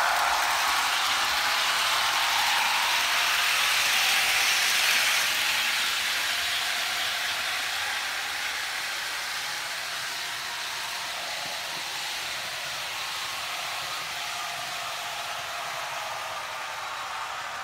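HO-scale model train running on the layout: the Jouef SNCF CC 72074 diesel locomotive's sound decoder plays diesel engine sound through its small speaker, over the rolling noise of the Corail coaches' wheels on the track. It is loudest for the first few seconds, then slowly fades as the train moves away.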